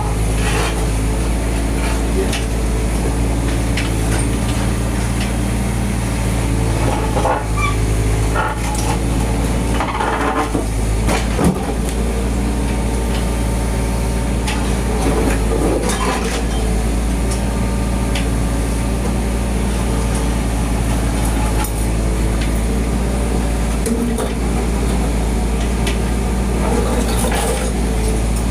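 An engine running steadily throughout, with scattered metallic clinks and knocks and a few brief voices.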